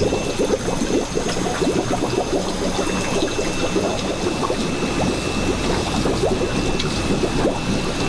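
Water splashing and trickling steadily as it runs from an inlet pipe into a shallow, nearly empty concrete fish-farm tank. A thin, steady high whine sits over the splashing, and a low rumble comes in about five seconds in.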